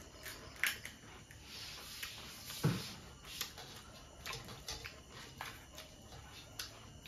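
Light crackles and clicks of crisp pani puri shells being cracked open by hand, with a spoon scraping in a steel bowl of filling. A brief hum of a voice comes about two and a half seconds in.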